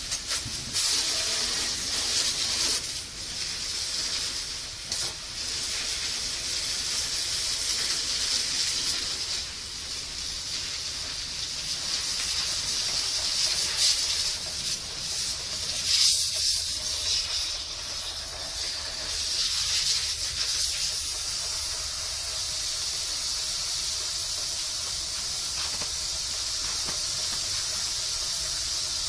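High-pressure washer jet spraying water onto a combine harvester's wheel and undercarriage: a steady hiss of spray that swells and fades as the jet moves.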